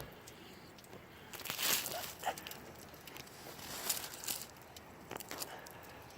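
Scattered rustling and crunching handling noises, with clusters of louder crackles about one and a half to two seconds in and again around four seconds in.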